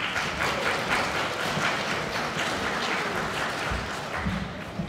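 Audience applauding: many hands clapping together, starting at once and dying away near the end.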